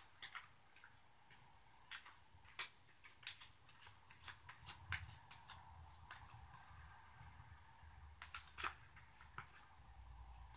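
Deck of tarot cards being shuffled by hand: faint, irregular snaps and slides of card edges against each other.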